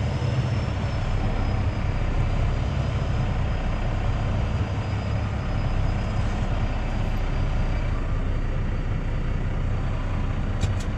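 Semi-truck's diesel engine running steadily with a low drone, with two short ticks near the end.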